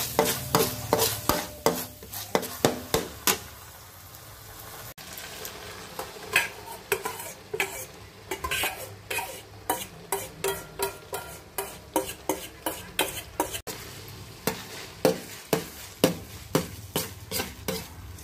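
Metal spatula scraping and clacking against a metal wok as minced pork and egg are stirred and fried, at about three strokes a second over a faint sizzle. The strokes thin out briefly about four seconds in, then resume.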